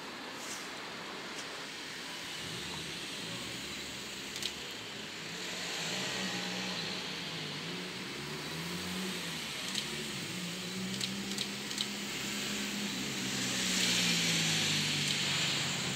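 Seibu 40000-series electric train pulling into the station. The hum of its traction motors wavers up and down in pitch, and the rumble of wheels on rail grows loudest near the end, with a few sharp clicks along the way.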